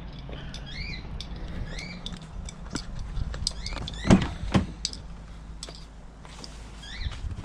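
Driver's door of a 2018 Ford Mustang GT being opened: two sharp clunks about half a second apart as the handle is pulled and the latch releases.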